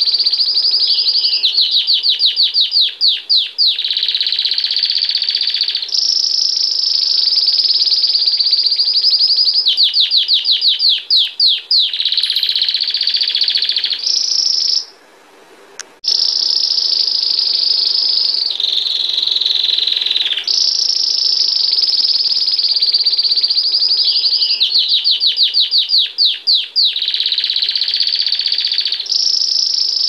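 Domestic canary singing a long, continuous song of rolling trills and runs of fast repeated notes, with a short pause about halfway through.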